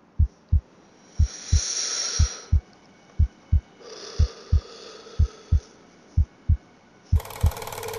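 Heartbeat sound effect: a slow, steady double thump about once a second. Two soft hissing swells rise and fade over it, and a louder harsh, buzzing static noise cuts in about seven seconds in.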